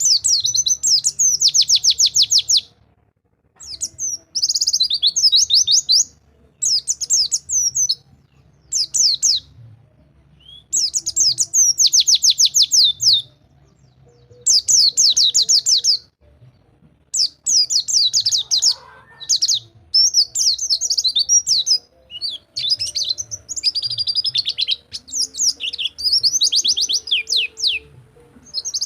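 White-eye (pleci) singing a rapid rolling 'rol tembak' song: bursts of fast, high trilled notes, each a second or two long, repeated after short pauses.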